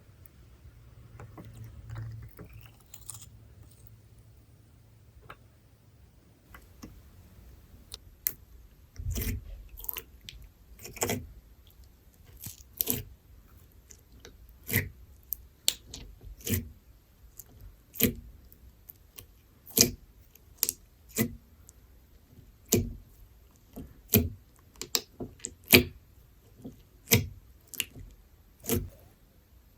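Slime being squeezed and poked by hand, giving a run of short, sharp wet pops and clicks about once a second. These start several seconds in, after a stretch of faint low hum.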